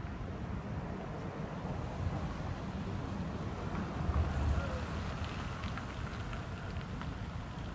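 Road traffic: cars driving round a roundabout, one passing close and loudest about four seconds in, over a steady low rumble of wind on the microphone.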